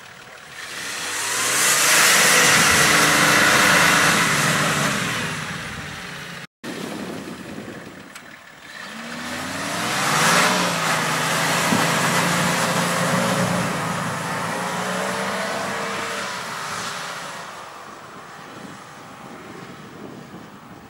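Nissan Patrol off-roader's engine revving hard under load as it climbs a muddy slope. It comes in two spells of revving with the pitch rising and falling, and a brief break in between.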